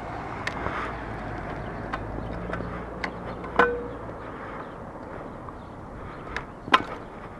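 Small pit bike moving slowly along concrete: a low steady rumble with scattered sharp clicks and knocks, the loudest near the middle and near the end.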